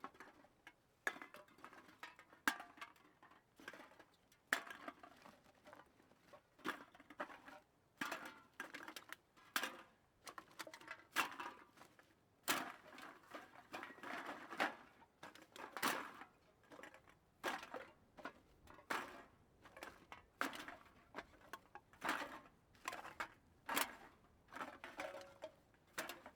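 Metal cans being counted, picked up and set down one after another, each a short clatter or clink, roughly one a second with some quick pairs. Heard faintly and at a distance, with a little room echo.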